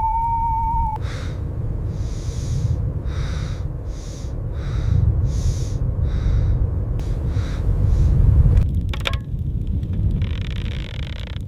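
A steady low rumble, with a single held, slightly wavering tone that cuts off about a second in. A string of short breathy hisses follows, then a few sharp clicks near the end.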